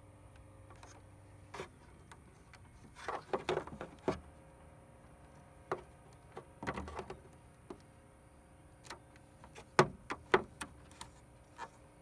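Small handling sounds of wiring work: crackles and clicks as the black plastic tube around a turn-signal lead is cut open with a knife and the wires are worked with a wire stripper. They come in three short clusters, about three seconds in, near the middle, and about ten seconds in.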